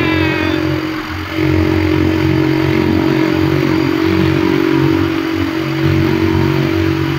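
Motorcycle engine running steadily while riding, with air rushing past the microphone. The engine sound dips briefly about a second in.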